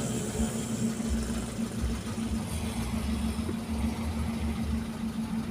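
Car engine idling, a steady low hum with an uneven rumble underneath.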